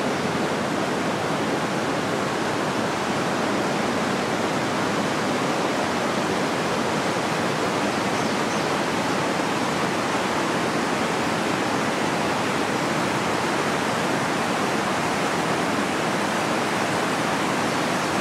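A river rushing steadily, an even unbroken wash of water noise.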